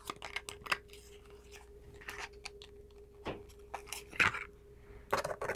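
Product packaging being opened and handled by hand: a run of small clicks and rustles, with a few louder taps in the second half.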